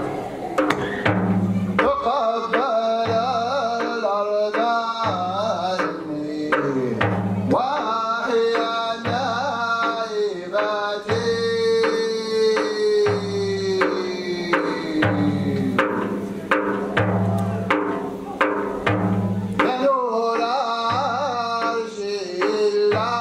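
A solo male voice chants a nasheed in Moroccan style over a hand-held frame drum beating a repeating rhythm of deep strokes. Around the middle the singer holds one long note that slides down in pitch.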